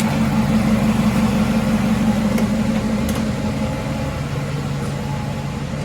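A motor vehicle's engine idling steadily, an even hum with a constant pitch that starts abruptly just before this moment.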